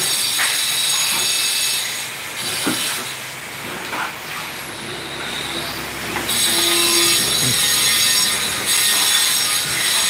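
A power tool running with a steady high-pitched whine and hiss. It drops back for a few seconds and comes in louder again about six seconds in.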